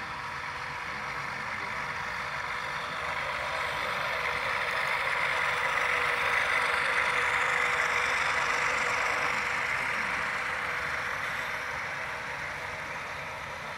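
HO scale model train, led by ScaleTrains ES44AC locomotives, running past on the layout: its rolling and running noise swells to a peak in the middle and then fades away.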